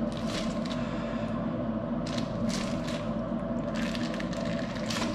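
String and a plastic sausage casing rustling and scraping in a few short spells as the end of a filled casing is tied off by hand, over a steady machine hum with several fixed pitches.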